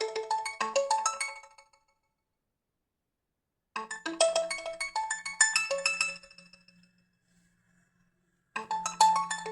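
Nokia mobile phone ringtone playing: a melody of quick, bright pitched notes in short phrases that repeat, with gaps of about two seconds between them.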